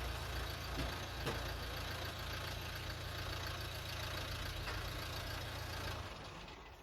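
Nissan Qashqai engine idling steadily, left running so the steering can be turned lock to lock with the front wheel off. The hum drops away about six seconds in.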